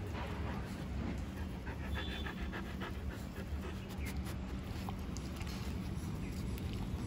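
A dog panting close by, over a steady low background hum.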